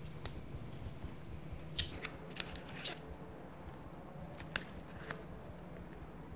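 Light handling of a cigarette and its cardboard pack: a few soft clicks and crackles, a small cluster of them about two and a half seconds in, over a faint low hum.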